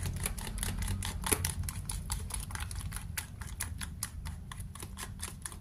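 A metal fork stirring and mashing banana batter in a plastic tub, clicking and tapping against the container in quick, irregular strokes, several a second.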